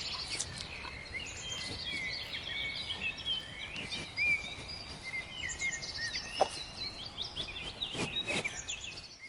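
Many small birds chirping and calling in a busy chorus of short, quick notes over a steady outdoor hiss, with a few soft knocks now and then.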